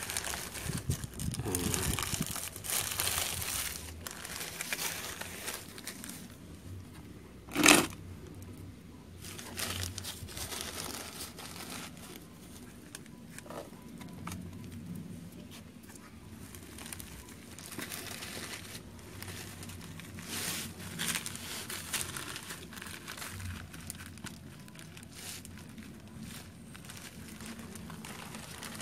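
Black plastic polybag crinkling and tearing as it is peeled away from an adenium's soil-packed root ball. A single sharp knock about eight seconds in is the loudest sound.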